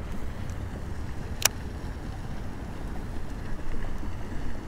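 Wind rumbling on the microphone, with a single sharp click about one and a half seconds in.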